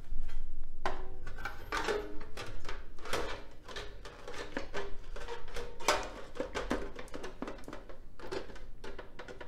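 Perforated sheet-metal top cover of an NAD 7250PE stereo receiver being handled and fitted onto the chassis: a string of irregular clanks, taps and scrapes of thin metal, some with a short ring.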